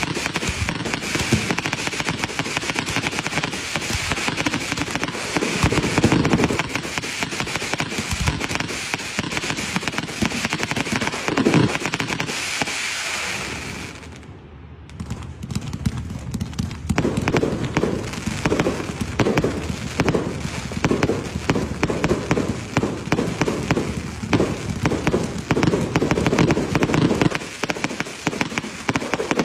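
Aerial fireworks launching and bursting in a dense run of rapid crackling pops, with a few heavier booms. The firing stops briefly about halfway through, then picks up again with another fast volley.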